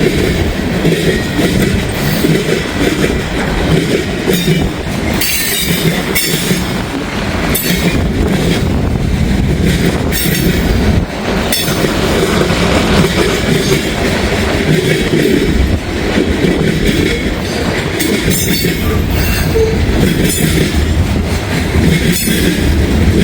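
Freight cars of a long mixed-manifest train rolling past close by: steady wheel and rail noise with repeated sharp bangs as the wheels slam over a worn switch frog, and some wheel squeal. Wind rumbles on the microphone.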